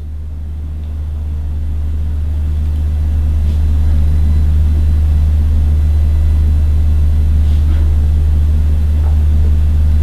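A loud, steady low hum with no other clear sound; it swells a little over the first few seconds.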